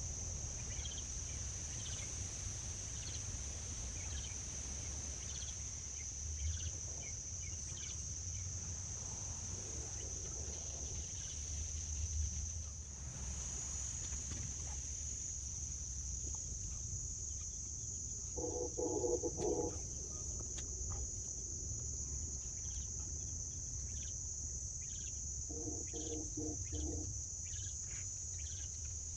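Steady high-pitched insect chorus of crickets, with a low rumble underneath. A bird gives two short calls, one about two-thirds of the way through and one a few seconds later.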